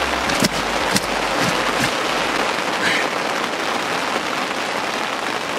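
Heavy rain falling, a steady dense hiss. A few sharp knocks come through it in the first two seconds.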